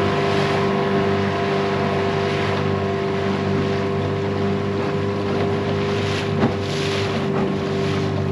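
Bass boat's motor running at a steady speed under way, with wind rushing over the microphone.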